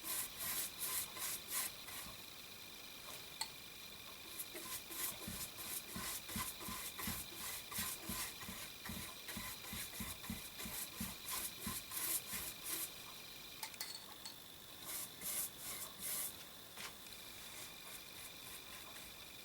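Rhythmic rubbing strokes on wood, a few a second, coming in runs with short pauses, over a faint steady high whine.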